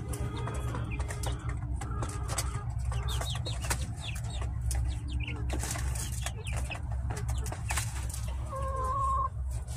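Chickens clucking and peeping: many short falling peeps and soft clucks, with one longer held call near the end, over a steady low hum.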